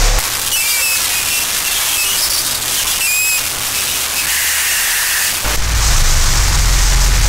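Harsh noise music made on electronics: a dense wall of static hiss with a few short high squealing glides. A heavy low rumble cuts out just after the start and comes back about five seconds in.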